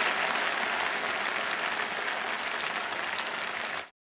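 Ribbonfish and brinjal curry in mustard paste sizzling and bubbling in a frying pan, a steady hiss that eases slightly and cuts off near the end. The oil has separated and floated to the top, the sign that the curry is cooked through.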